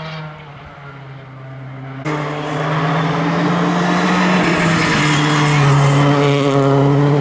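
Citroën C3 R5 rally car's turbocharged four-cylinder engine running hard at high revs. For the first two seconds it is quieter and fading away. Then there is an abrupt jump to a much louder engine note as the car comes up and passes close, its pitch dipping slightly about five seconds in.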